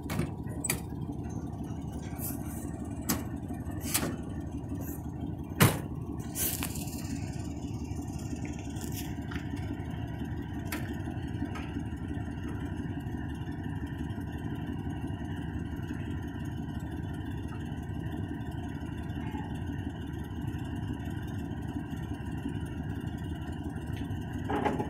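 Truck engine idling steadily. A few sharp clicks and knocks sound over it in the first several seconds, the loudest about five and a half seconds in.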